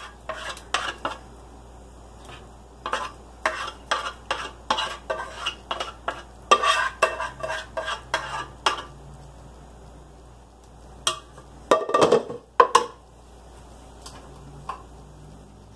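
A spoon scraping and tapping against the inside of a cooking pot as thick rice pudding is scraped out, a quick run of scrapes and taps for most of the first nine seconds. After a short lull come a few louder knocks.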